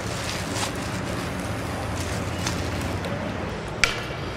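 Steady outdoor street background noise with a low hum, broken by a few light clicks and one sharp click near the end.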